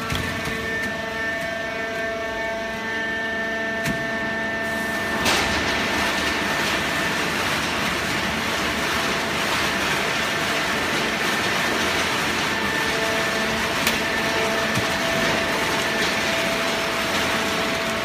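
Industrial horizontal hydraulic baler running: a steady mechanical hum with several held tones, joined about five seconds in by a louder, even rushing noise that carries on.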